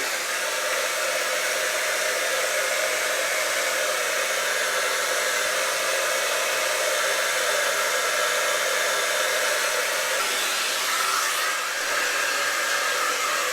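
Handheld hair dryer running steadily, blowing air through hair.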